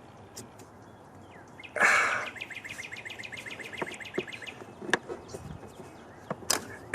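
Faint scattered clicks of a plastic hose connector being pushed down and worked loose from a vapor canister purge solenoid. About two seconds in comes a short rasping burst, then a bird's rapid trill of evenly repeated chirps lasting about two seconds.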